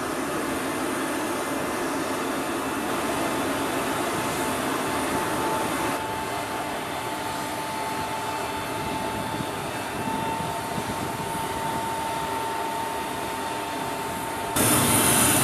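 Steady noise of aircraft machinery: a constant rumble, a thin high whine through the middle, and an abrupt rise in loudness near the end.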